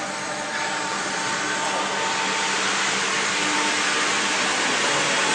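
CNC router running: a steady rushing hiss with a faint high whine, growing slightly louder.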